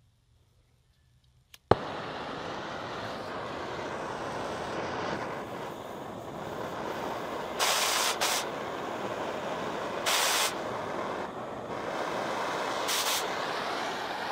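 Oxy-acetylene cutting torch lit with a sharp pop, then its flame running with a steady hiss. Three short, louder blasts of gas cut through the hiss partway through and near the end.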